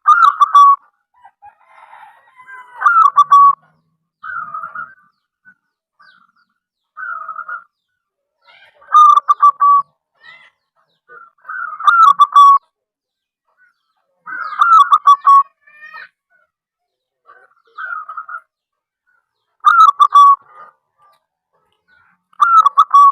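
A zebra dove (perkutut) singing its staccato cooing song. Loud phrases of rapid notes fall slightly in pitch and repeat every two to three seconds, with softer short coos between them.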